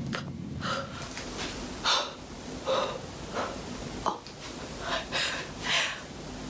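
A woman breathing audibly in short, breathy puffs and huffs, about seven of them, with a sharp click about four seconds in.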